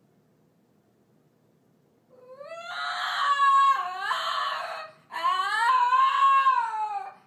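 Small long-haired dog howling: two long howls, the first starting about two seconds in and rising in pitch, the second following almost at once.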